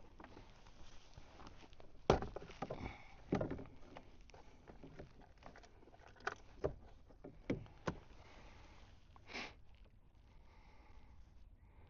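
Knocks and clunks on a fishing kayak: a scattered run of sharp hits, the loudest about two seconds in, with a few more in a second cluster and a brief scuffing rush near the end.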